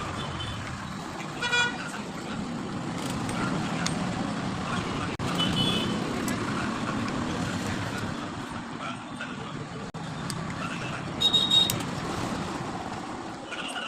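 Steady traffic noise with a short vehicle horn toot about a second and a half in, and another brief, higher-pitched horn-like sound around eleven seconds in.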